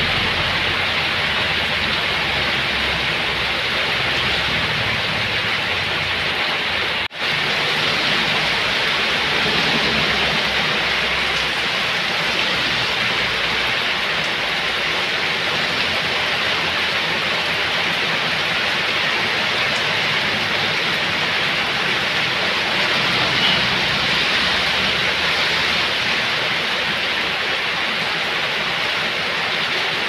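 Heavy rain pouring steadily onto waterlogged ground and pavement, a dense, even hiss, with a low rumble under it for the first half. The sound drops out for an instant about seven seconds in.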